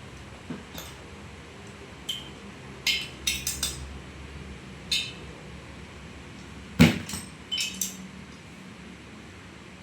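Sharp metallic clinks and taps of hand tools and engine parts being handled while a motorcycle cylinder head is taken off, with one louder knock about seven seconds in.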